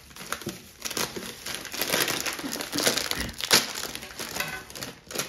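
Plastic snack packet of batata palha (potato sticks) crinkling as it is handled, in uneven rustles that are loudest in the middle.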